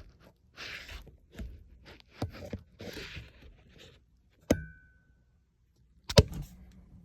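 Rustling and scraping from handling around an HVAC unit's filter compartment. About four and a half seconds in comes a sharp metallic clank with a brief ring, and near the end a louder knock.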